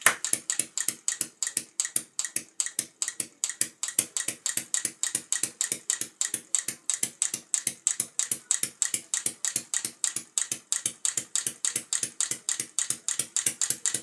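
Small 3D-printed diaphragm air engine running on compressed air, giving a rapid, even train of sharp clicking puffs as its valve lets each burst of air through.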